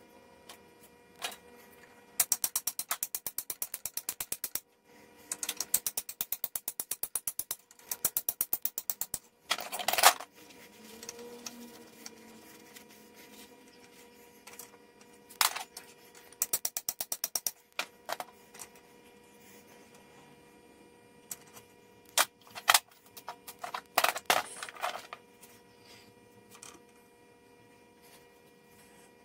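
Hand tools and metal parts being worked on a lathe's cast-iron quick-change gearbox: several bursts of rapid, evenly spaced metallic clicking, each a second or two long, and a few separate sharp knocks, the loudest about ten seconds in.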